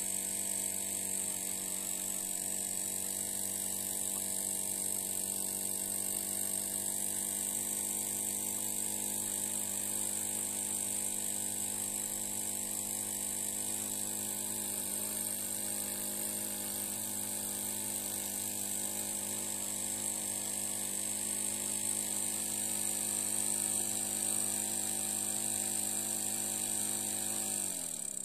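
Miniature vertical brass steam engine running fast on compressed air at about 3 to 9 psi: a steady, rapid buzz of exhaust beats over a high hiss of escaping air. Just before the end it slows and stops.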